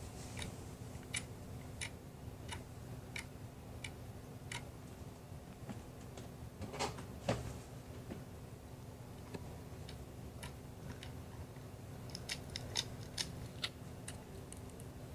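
Slime being played with by hand, giving a string of small sharp clicks and pops, a louder squelch about seven seconds in, and a quick run of clicks near the end.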